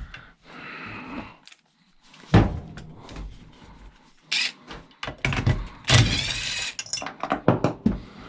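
Tools and metal chainsaw parts being handled on a workbench: a series of sharp knocks and clunks, with a short dense rattle about six seconds in.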